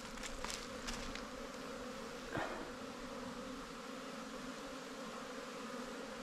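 Honey bees buzzing around their hives in a steady hum. The colonies are coming alive and starting to fly on an early-spring day after winter.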